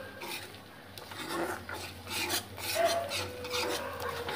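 A spoon scraping and stirring scrambled egg around a non-stick kadai, an irregular run of rasping strokes against the pan.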